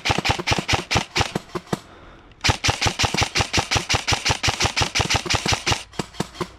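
Airsoft rifle firing rapid full-auto bursts of sharp shots, about a dozen a second. One burst stops about two seconds in, a longer burst runs from about two and a half seconds to near six, and a single shot follows.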